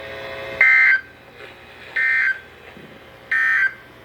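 NOAA Weather Radio SAME end-of-message data bursts closing the Required Weekly Test: three identical short buzzing two-tone bursts, each about a third of a second long and about 1.4 s apart, over faint radio hiss.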